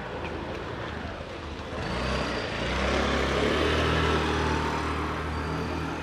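A motor vehicle's engine runs close by, growing louder about two seconds in and easing off near the end, as a vehicle passing on the street would.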